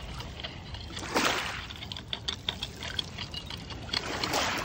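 Shallow lake water sloshing and splashing as a scoop is dipped and dragged among pebbles, with small stones clicking against each other and the scoop; two louder splashes, about a second in and near the end.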